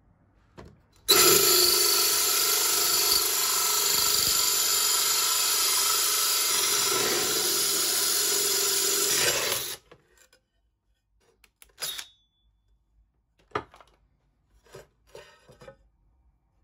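Ryobi cordless drill driving a diamond-coated tile hole saw through a stone-look tile: a steady grinding drill noise that starts about a second in and stops sharply after about nine seconds. A few light knocks follow near the end as the drilled tile is lifted.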